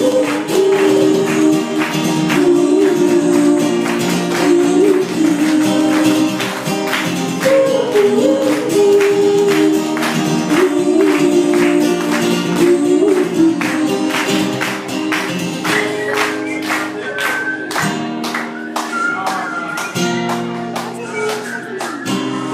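Live pop band playing an instrumental passage between sung lines, with sustained melodic instruments over a steady percussion beat.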